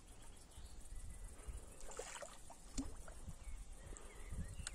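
Faint water splashing and sloshing from a hooked carp moving at the surface close to the bank, with a few short splashes or clicks scattered through it.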